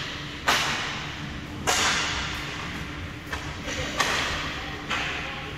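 Hockey play in a rink: about five sharp knocks from sticks, puck and boards, each trailing off in a hissing echo that lasts about a second.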